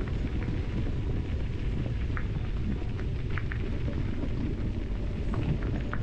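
Wind buffeting the microphone and rumble from riding a bicycle along a dirt trail, with a few short high chirps over it.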